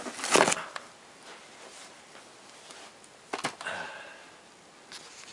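Handling noise in a small room: a short rustle just after the start, then low room hiss, with a sharp click about three and a half seconds in and a smaller one near the end.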